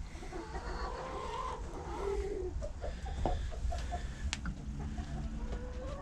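Several hens clucking softly in a chicken coop, a scatter of short, low murmuring calls overlapping one another.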